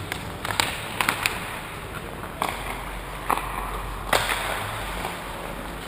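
Ice hockey play on an indoor rink: about six sharp cracks of sticks and puck striking the ice, over a steady hiss of skates and rink noise.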